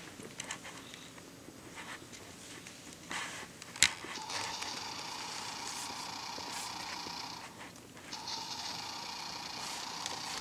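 An electronic children's toy with push buttons: a sharp click a little under four seconds in, then the toy's small speaker sounding in two steady stretches of about three seconds each, with a short break between.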